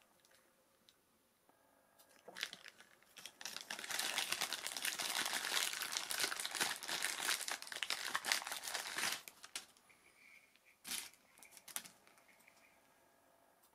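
Plastic packaging crinkling and rustling as it is handled and torn open, dense for about six seconds, then a few short sharp clicks.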